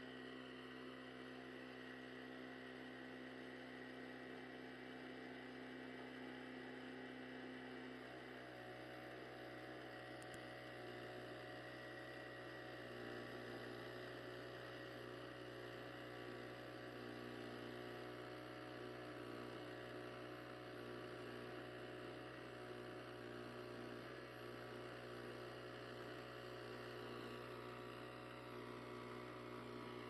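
The small gasoline engine of a Hudson Little Oscar walk-behind band sawmill running steadily as the band blade cuts along a red oak log: an even hum. Its tone shifts slightly about eight seconds in.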